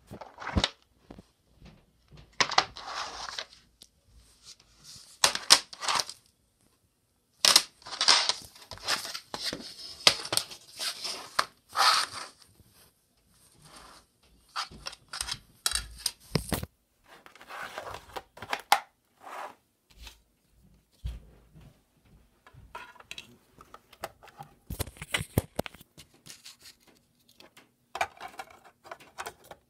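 Hands handling a plastic DVD case and its disc: an irregular run of clicks, snaps and short scraping rustles as the case is worked open and the disc is taken off its hub and pressed onto a portable DVD player's spindle.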